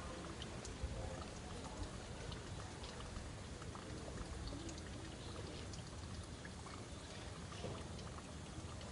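Steady hiss like trickling or running water, with scattered faint ticks.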